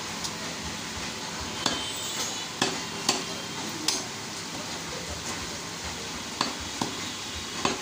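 Butcher's cleaver and knife striking beef on a wooden log chopping block: several sharp knocks at irregular intervals over steady background noise.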